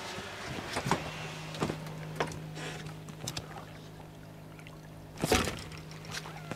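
Water sloshing and pouring around a fishing boat, with small knocks and one louder rush of water about five seconds in, over a steady low hum.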